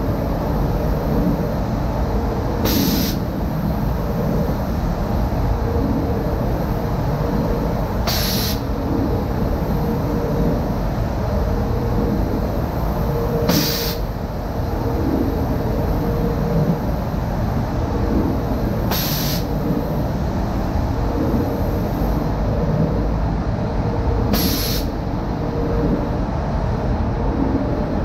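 Automatic powder coating booth running: the steady rushing noise of the booth's air handling and the compressed-air powder spray gun. A short, sharp hiss of air comes five times, about every five and a half seconds.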